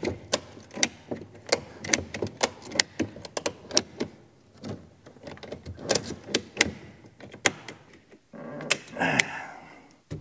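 Ratchet tie-down strap being worked tight around a plastic sprayer tank: a long run of sharp clicks, with a short scraping rasp near the end.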